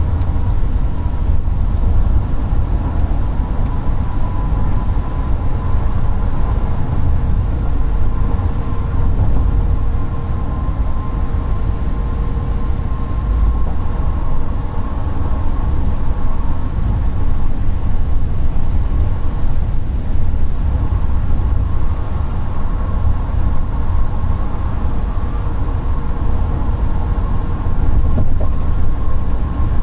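Road and engine noise inside the cabin of a Ford van at highway speed: a steady deep rumble with a faint steady whine over it.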